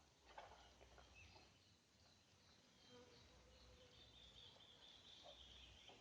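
Faint outdoor ambience: a few soft clicks in the first second, then a thin, high-pitched call held for about two seconds in the second half.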